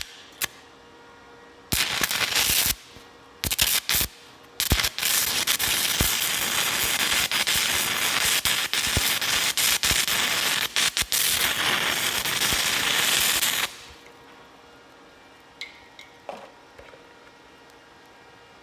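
Stick-welding arc of a 6010 electrode at 120 amps, crackling and popping. Two short strikes that go out are followed by a restrike and a steady bead of about nine seconds, which stops abruptly.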